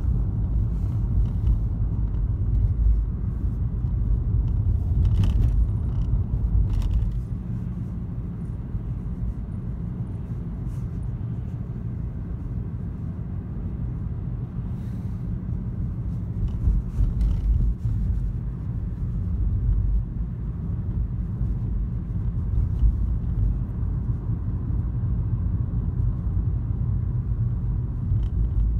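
Steady low rumble of a car driving, road and engine noise heard inside the cabin, with a few faint clicks.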